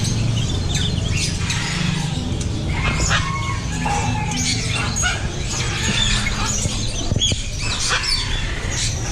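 Many caged birds chirping and calling at once: short, overlapping calls that keep coming throughout, over a steady low hum.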